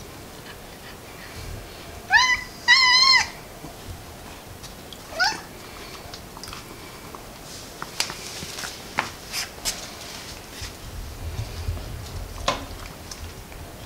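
Domestic cat meowing: two meows in quick succession about two seconds in, then a shorter rising call a few seconds later. Scattered light clicks and taps follow later on.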